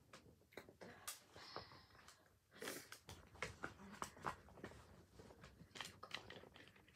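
Faint breathing and sniffing close to the microphone, with scattered small clicks and rustles of hands handling paper.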